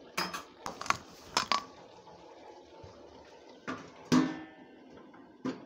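Metal spatula knocking against an aluminium kadai several times in quick succession, then a lid set down on the kadai about four seconds in with a ringing clang, and one more knock near the end.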